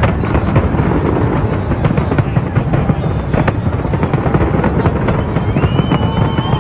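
Large fireworks display going off: dense, continuous crackling and popping from gold crackle bursts over a steady low rumble of explosions. A few steady musical tones come in near the end.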